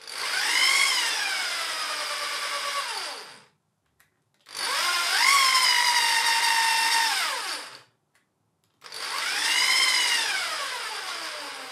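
Corded electric drill spinning a CNC router's Z-axis ball screw through an adapter, driving the carriage along its rails to test how freely the axis moves. The whine comes in three runs of about three seconds each, rising in pitch as the drill speeds up and falling as it slows.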